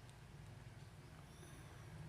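Near silence: faint steady low hum of room tone.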